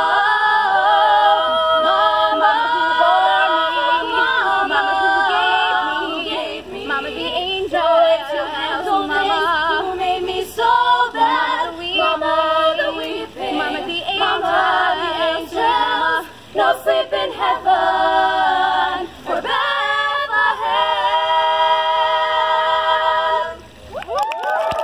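A group of five teenage girls singing a cappella in close harmony, with long held chords. The singing stops shortly before the end.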